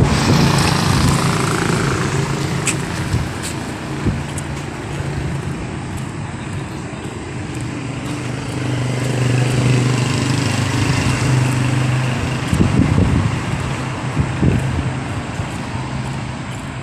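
Street traffic: a motor vehicle engine running with a steady low hum, with other traffic noise around it and a couple of louder swells about three-quarters of the way through.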